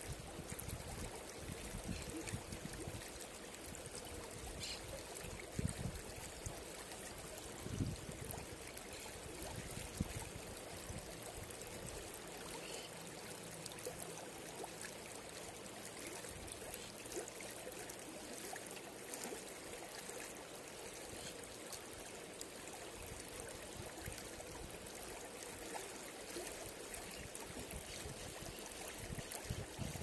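Shallow mountain river rippling and gurgling over rocks, a steady rush of running water, with a few brief low thumps in the first third.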